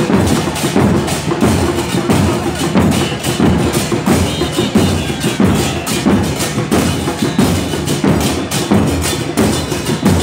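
Murga porteña percussion: a large section of bombos con platillo, bass drums with cymbals mounted on top, beating a loud, steady rhythm.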